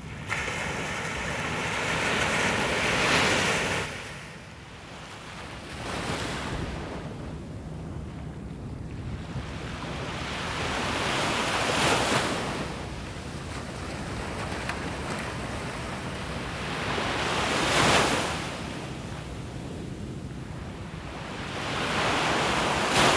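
Small waves breaking on a beach: the surf rises and falls every few seconds as each wave comes in.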